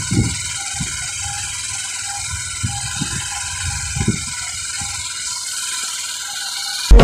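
Motorcycle engine running steadily as the bike rides along, with wind thudding on the microphone. Loud electronic music cuts in suddenly at the very end.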